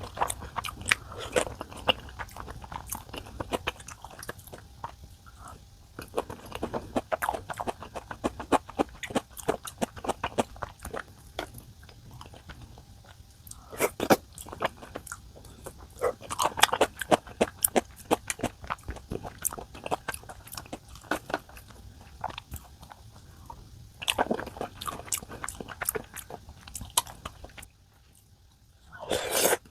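A person eating close to the microphone: chewing and biting, with runs of sharp clicks and crunches, louder in clusters every few seconds.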